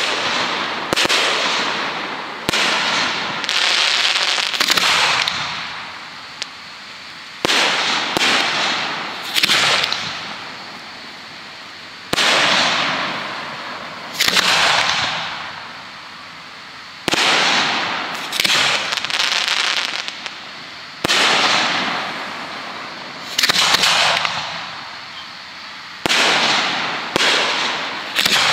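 Display fireworks going off in a steady run, a sudden burst every one to two seconds. Each burst is followed by crackling that fades over a second or two.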